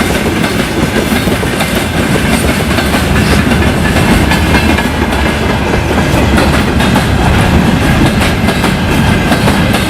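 Freight train rolling past close by: a loud steady rumble of wagons, with wheels clattering over the rail joints.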